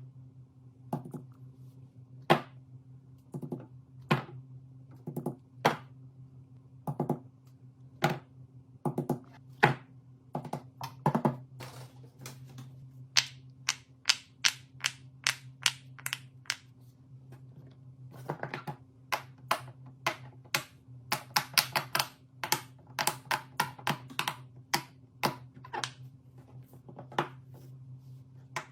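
A series of sharp clicks and taps from small objects being handled, sparse at first and then in quick runs of several a second from about halfway, over a steady low hum.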